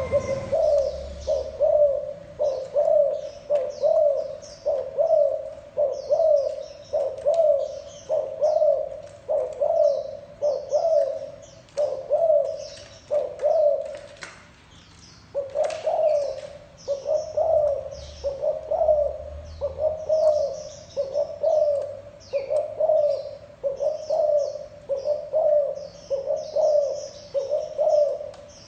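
Spotted dove giving its repeated 'gù' coo: short coos about once a second, with a break of about a second near the middle. Other birds chirp high above it.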